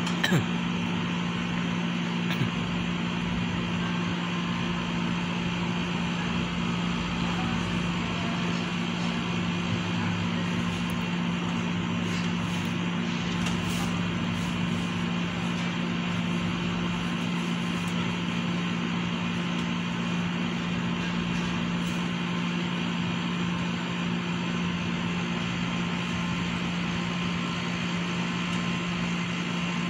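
Steady machine hum with a low drone that does not change, and a few faint clicks about halfway through.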